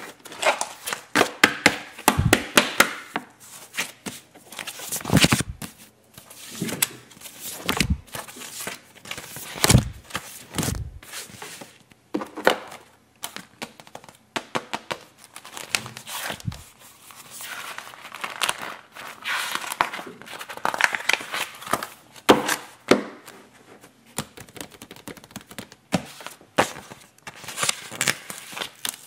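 Paper sticker sheets handled by hand: irregular rustling and crinkling as the sheets are shuffled and laid out and stickers are picked at and peeled off. A few thumps come among the rustles.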